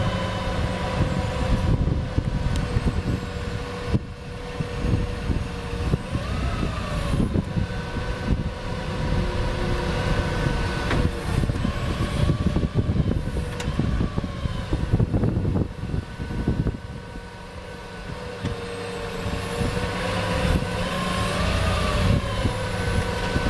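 A 2009 Dodge Ram 5500's Cummins 6.7-litre turbo diesel running with the PTO driving the hydraulic pump of the Altec boom while the boom is lowered and stowed. A steady whine rises and dips in pitch several times as the controls are worked, over a rough, gusty low rumble, with a few sharp knocks a little past halfway.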